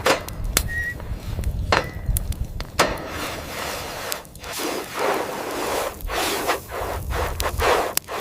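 A few sharp knocks, then repeated scraping or rubbing strokes, each about half a second long.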